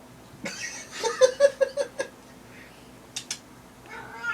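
A person giggling in a quick run of short bursts, then two sharp clicks just after three seconds in.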